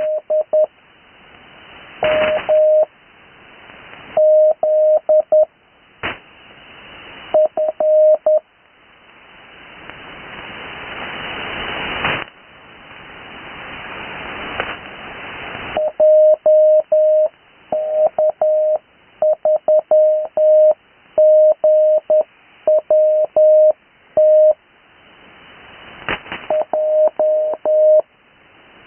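Slow Morse code (CW) heard over an 80 m radio link: a steady mid-pitched tone keyed in dots and dashes, in groups separated by long pauses. Band hiss swells during the pauses, and there are a few sharp static crackles.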